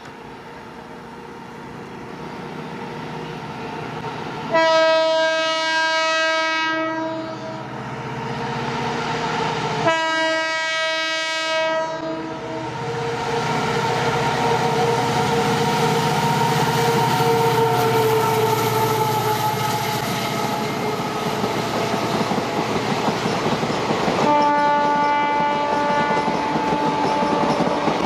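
An EMD GT46MAC (WDG4) diesel-electric locomotive, with its two-stroke V16 engine, approaches with a rising rumble and sounds three long multi-tone horn blasts, about five seconds apart and then about twelve seconds apart. Between the second and third blasts it runs past hauling a passenger train, its engine and the coach wheels clattering over the rail joints.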